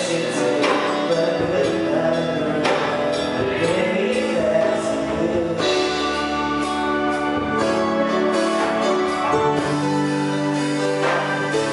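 Live band playing: a drum kit with occasional cymbal crashes under sustained keyboard chords, with a voice singing over the mix.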